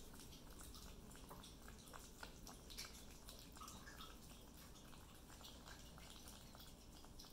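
Faint, wet clicking and smacking of Yorkie-poo puppies chewing and lapping raw food from a bowl.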